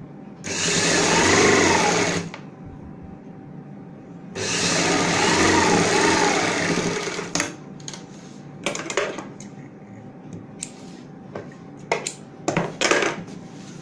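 Sewing machine stitching a straight seam through layered fabric in two runs of about two and three seconds, its speed rising and falling in each run. Fabric handling and several short snips of large tailoring scissors follow near the end.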